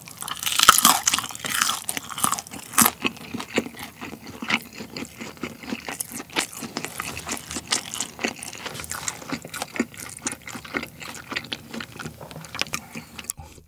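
Close-miked chewing of a fried kimchi gimmari, a battered seaweed roll with a kimchi filling whose batter is no longer crisp. A louder bite and crunch come in the first couple of seconds, then steady chewing with many small crackles and clicks.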